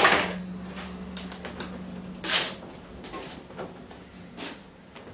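Furniture handling sounds: a sharp knock at the start, lighter knocks after it, and a short scrape about two seconds in, as someone gets up from a chair at a desk.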